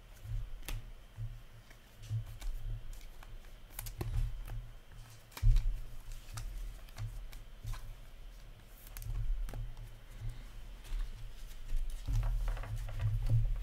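Hockey trading cards being handled on a counter: cards slid and flicked through, with many light clicks and soft thumps of hands and card stacks on the surface, the loudest thump about five and a half seconds in.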